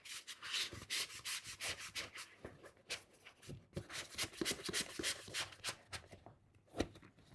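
Toe stubs being worked into the fabric pocket below the bed's door: a run of short rubbing, scuffing strokes, fainter for a moment midway, with one soft knock near the end.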